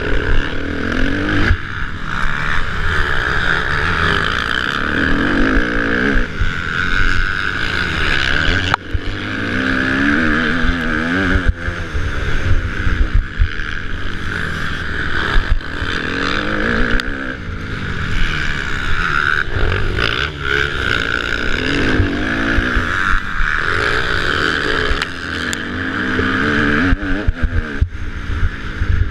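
Kawasaki motocross bike's engine running hard under race load, its pitch rising and falling over and over as the throttle is opened and shut through the turns and straights, heard close from a camera on the bike.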